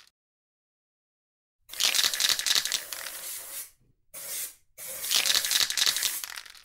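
Aerosol spray-paint can hissing in three bursts, a long one, a short one and another long one, with a sputtering, crackly edge.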